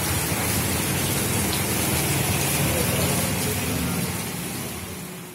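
Heavy rain falling on roofs and ground, a steady hiss that fades out near the end.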